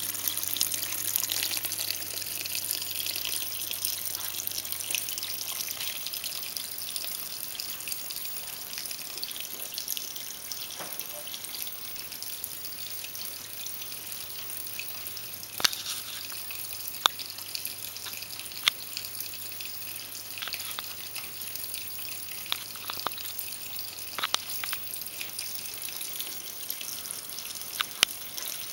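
Water trickling steadily from a small vivarium waterfall, with a few sharp drips in the second half.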